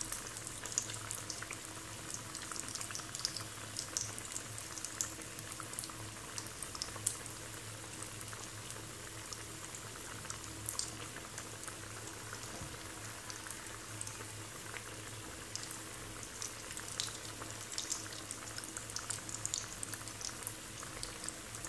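Batter-coated potato bondas deep-frying in hot oil in a steel kadai: a steady sizzle and bubbling with scattered sharp crackles. A faint steady hum runs underneath.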